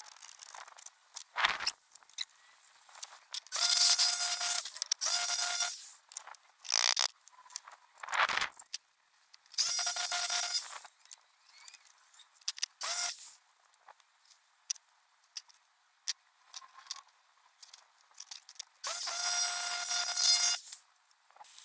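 Makita jigsaw cutting a thin sheet-steel offcut into a repair patch, running in several short bursts of a second or two with a steady whine under the rasp of the blade, the longest burst near the end. Short knocks and scrapes of the steel being handled come between the cuts.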